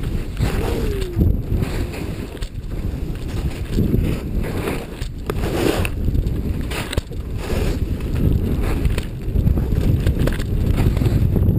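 Wind buffeting the microphone during a downhill ski run, with skis running through fresh snow. The rumble swells and eases every second or two with the skier's speed and turns.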